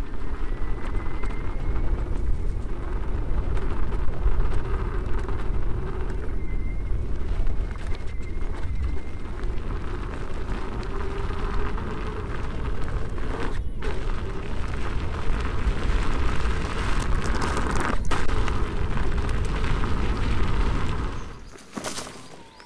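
Heavy wind buffeting on the microphone and tyre rumble from a Veteran Patton electric unicycle riding fast over a dirt trail. The rumble drops off sharply near the end.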